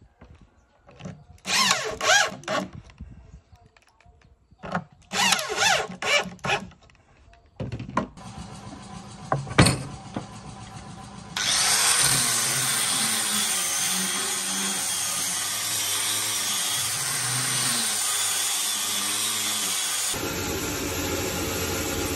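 Corded electric drill run in short bursts that spin up and stop, in two groups. From about halfway, an angle grinder with a sanding disc runs loud and steady as it sands a wooden cabinet panel frame. Near the end the steady machine sound changes to a lower hum.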